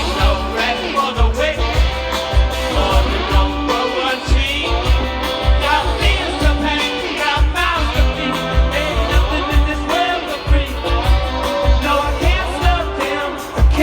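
Live rock band playing with a lead vocal over a steady kick-drum beat.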